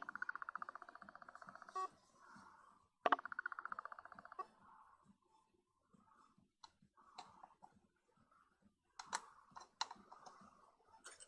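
Parts of a Vivitar Series 1 70-210mm zoom lens being handled and worked: two runs of rapid, even clicking, each a second or so long, then a few sharp separate clicks near the end.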